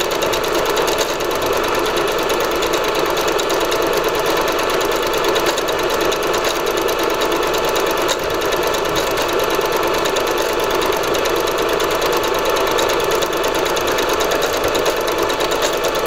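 Singer Patchwork 7285Q computerized sewing machine running steadily at speed, sewing a decorative stitch. It makes a fast, even rhythm of needle strokes without a break.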